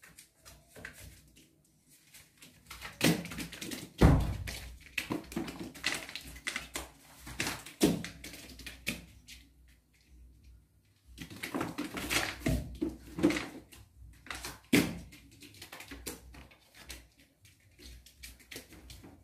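Irregular knocks, thumps and scuffs of baby monkeys clambering, jumping and landing on tiled surfaces. The loudest is a heavy thump about four seconds in, and there is a quieter stretch in the middle.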